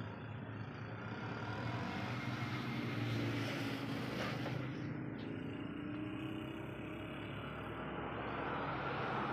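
An engine running steadily, a low, even hum.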